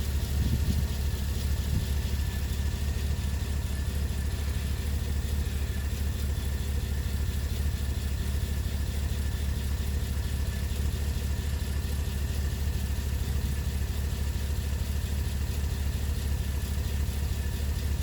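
2012 Chevrolet Camaro SS's 6.2-litre V8 idling steadily. The intermittent misfire-like sound from under the car that the owner is trying to catch is not clearly present.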